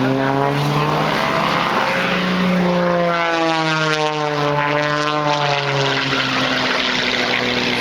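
Single-engine propeller race plane flying past at full power, its engine and propeller note dropping in pitch as it goes by about halfway through.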